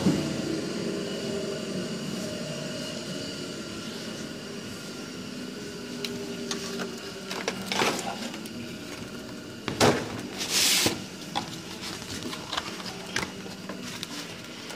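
Heidelberg SBG cylinder die-cutting press, its loud running noise fading away over the first few seconds to a low hum. Then paper cracking and rustling as die-cut sheets are handled, loudest about ten seconds in.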